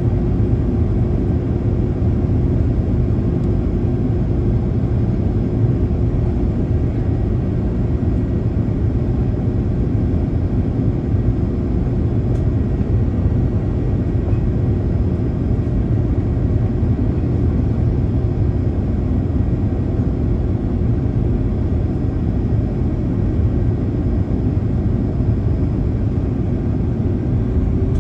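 Cabin noise of an Airbus A330-203 heard from beside the engine during descent: a steady, loud rumble of airflow and the General Electric CF6-80E1 turbofan with a steady engine hum. Near the end the hum rises in pitch as engine thrust increases.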